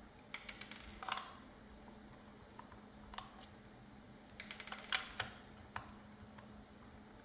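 Phillips screwdriver turning out the small screws in the plastic base of a Dell wireless mouse: quick runs of small clicks and ticks about a second in and again about four and a half seconds in, with a few single ticks between.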